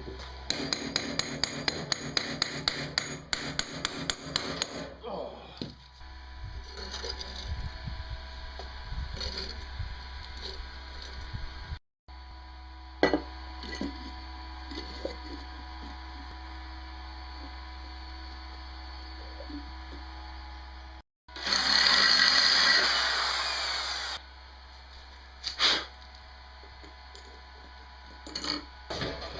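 Workshop tool noises in edited pieces: a fast, even run of metallic clicks for about four seconds, then scattered knocks and taps. A little past the middle comes a loud rushing noise lasting a couple of seconds, and a sharp knock follows near the end.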